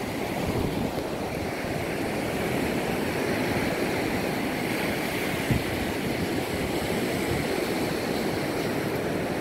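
Small sea waves breaking and washing up a sandy beach, a steady surf noise with some wind rumble on the microphone. A single brief bump about five and a half seconds in.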